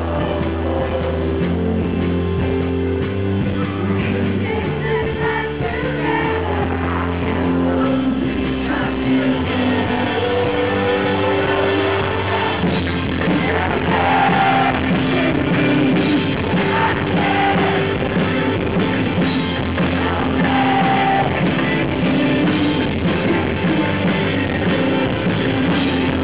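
Live rock band playing, with a male lead singer singing hard, at times close to shouting, over keyboard, bass and drums.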